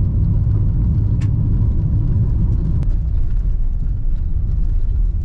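A car driving along a gravel road, heard from inside the cabin: a steady, loud low rumble of tyres and engine, with a few faint clicks.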